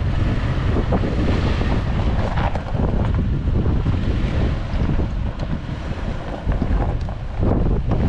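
Wind buffeting the microphone: a loud, steady rumbling noise, with a few short knocks on top.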